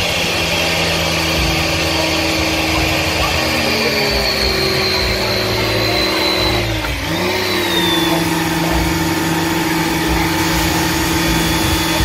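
Electric pressure washer running, its motor and pump humming steadily while the water jet sprays onto a motorcycle. About seven seconds in the motor's pitch dips briefly and picks back up.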